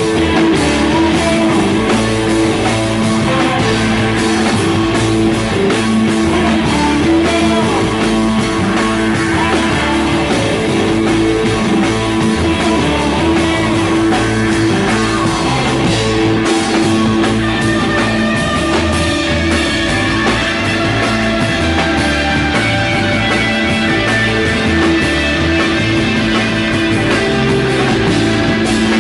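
Rock band playing live, guitar and drums over steady sustained low notes, at a constant loud level.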